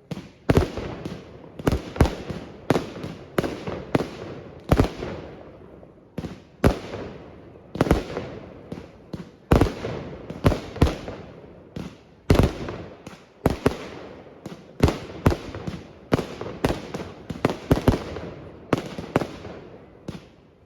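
Fireworks display: a rapid, irregular barrage of shell bursts, dozens of sharp bangs each trailing off in a crackling, echoing tail, several a second at the busiest moments.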